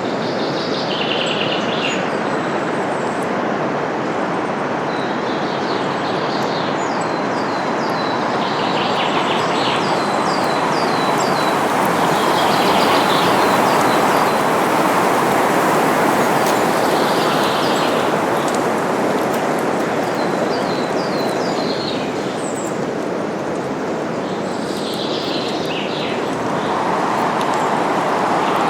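Wind rushing steadily through forest foliage, swelling and easing, with small songbirds calling above it in scattered bursts of chirps and quick runs of short falling notes.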